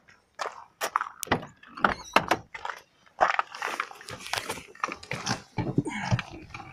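An Alfa Romeo 156's driver's door being opened and someone climbing into the seat: an irregular string of knocks, clicks and rustling, with a longer rustle around the middle.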